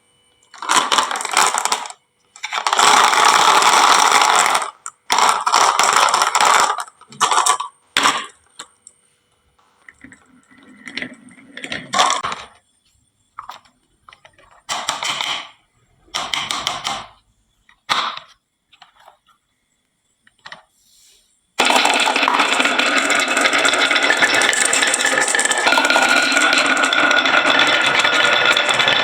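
Marbles rattling and clicking down a wooden marble run and clinking into toy trucks, in separate bursts of a second or two with short silent gaps between them. From about 22 seconds in, a continuous dense clatter.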